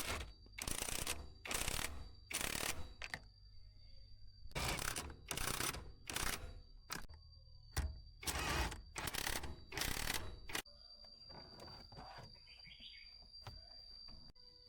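About a dozen short hissing bursts in two runs, each under half a second, with a faint steady high whine beneath. The bursts stop about two-thirds of the way through, leaving only the whine.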